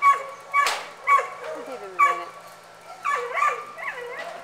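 A dog barking repeatedly in short, high yaps, several times over a few seconds.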